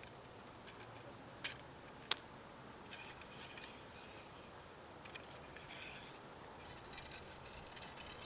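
Retractable (telescopic) fishing rod being pulled out and its sections twisted to line up the guides: two sharp clicks about a second and a half and two seconds in, then faint scraping and ticking of the sections sliding and turning.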